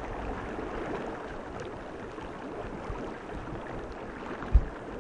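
Steady rushing of a fast, rippling river current, with one brief low thump near the end.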